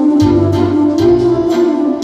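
Electronic keyboard playing an instrumental passage: a sustained lead melody over the keyboard's built-in rhythm accompaniment, with bass and a steady beat.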